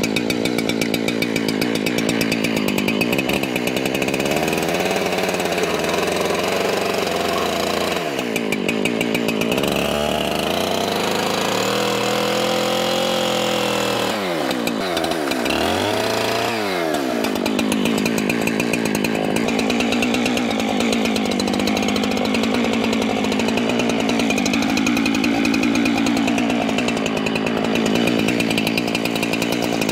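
Husqvarna two-stroke chainsaw running under load, cutting white oak, its engine pitch sagging and recovering a few times as the chain bites. The chain is dull and, in the owner's words, could use a sharpening: it is not cutting well.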